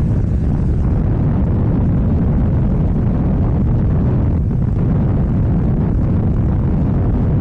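KTM 790 Duke's parallel-twin engine running through an Akrapovič exhaust while the bike is ridden at a steady pace, loud and even, with a brief dip about four and a half seconds in.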